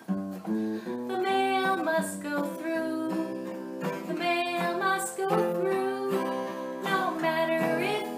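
Acoustic guitar strummed in a steady song accompaniment, with a woman singing along.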